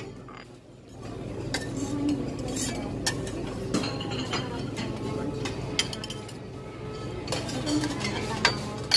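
Buffet restaurant clatter: plates and cutlery clinking, with a few sharp clinks over a steady murmur of background chatter.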